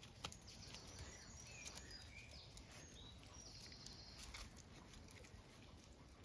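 Very quiet scene with faint birdsong: a run of short high chirps and whistles through the first four seconds or so, with faint scuffling of puppies playing on paving stones.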